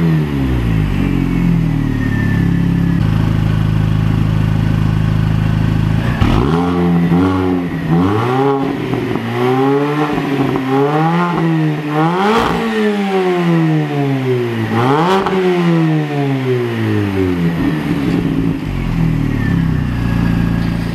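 2003 Mini Cooper S (R53) supercharged 1.6-litre four-cylinder running through a freshly fitted Direnza cat-back exhaust, with a bassy growl. It settles to a steady idle for a few seconds, then is blipped again and again, the revs rising and falling sharply each time.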